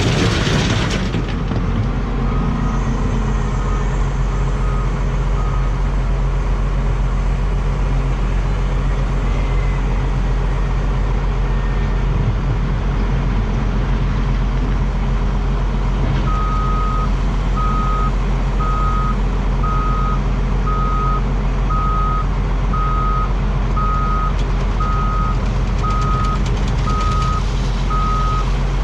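International 4700 dump truck's diesel engine running steadily, with its reverse alarm beeping, faintly a few times early and then steadily about one and a half beeps a second from the middle on as the truck backs up. A brief loud burst of noise fills the first second.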